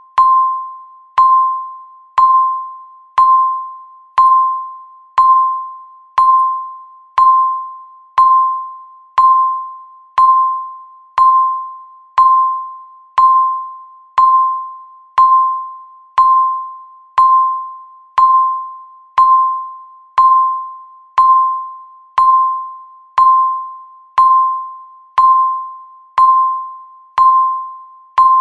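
Countdown timer beeping once a second, ticking off each second of the count. Each beep is a single clear electronic tone that starts sharply and fades away before the next one.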